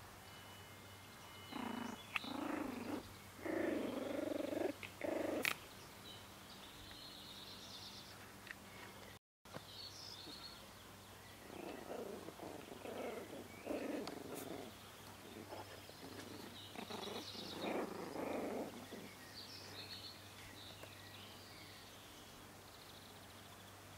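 Four-week-old Parson Russell Terrier puppies growling as they play-fight, in short rough bursts: one cluster about two to five seconds in and a longer run from about eleven to nineteen seconds.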